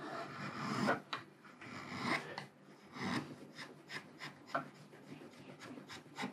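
Freshly sharpened chisel paring shavings off the edge of a wooden block: a series of short scraping strokes, about one to two a second. The cut goes basically effortless, the sign of a keen edge.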